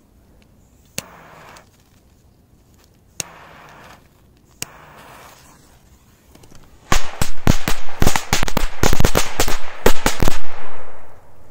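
A lighter struck three times, each click followed by a short hiss. About seven seconds in, a firecracker string ('machine-gun belt') goes off in a rapid run of many loud bangs lasting about three and a half seconds.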